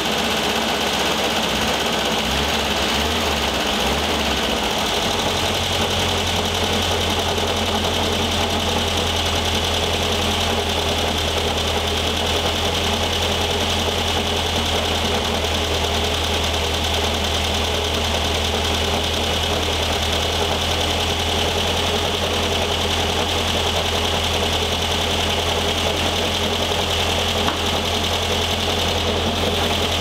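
Air-cooled flat-four engine of a 1973 VW Thing running steadily, evening out about five seconds in. It carries a noise that the owner traces to the engine's cooling fan.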